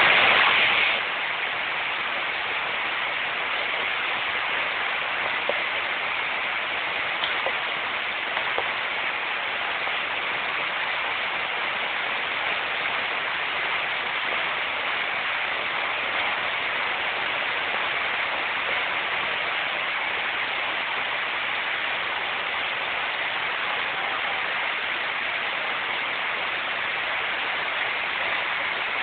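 Rain falling steadily, with a few sharper single taps now and then.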